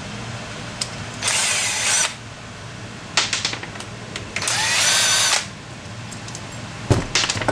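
Cordless drill with a screwdriver bit, run in two short bursts of about a second each, its motor whine rising as it spins up, backing the screws out of an electric water heater's thermostat. Light clicks of handling come between and after the bursts.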